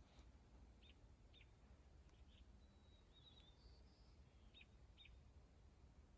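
Faint bird calls: short, high chirps every second or so, with a brief warbling phrase about three seconds in, over a very quiet low ambient hum.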